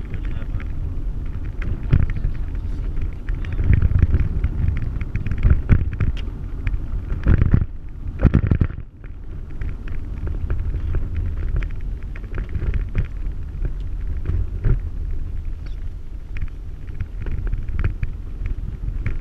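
Inside a vehicle's cabin driving a rough dirt road: a steady low rumble of engine and tyres, with frequent knocks and rattles as it goes over bumps. A few louder jolts come about seven to nine seconds in, followed by a brief drop in the noise.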